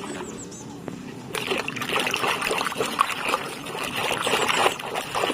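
Water splashing and sloshing as a muddy toy is washed, with many small splashes starting about a second in.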